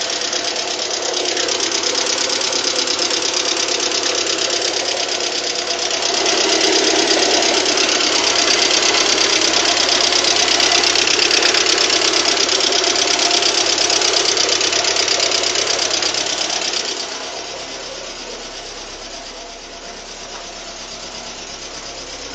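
VAZ-21126 1.6-litre 16-valve four-cylinder engine running with a steady, rapid knock, which the owner says sounds like hydraulic lifters or piston knock from the new 82.5 mm pistons. It gets louder about a quarter of the way in and drops back again about three-quarters of the way through.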